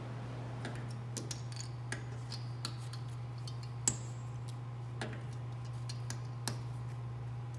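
Irregular small metallic clicks and ticks of a hand tool working the tuning pins and bass string wire of an antique Erard piano. One sharper click near the middle rings briefly. A steady low hum runs underneath.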